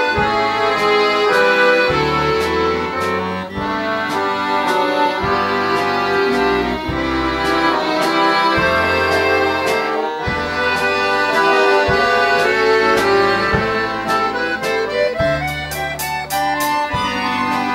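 An accordion orchestra plays a medley in full ensemble, many accordions sounding sustained chords and melody over a moving bass line. A drum kit keeps time with regular strikes and a quick run of hits near the end.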